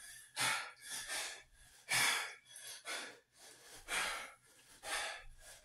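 A man breathing hard through his mouth during dumbbell squats, in short puffs about once a second.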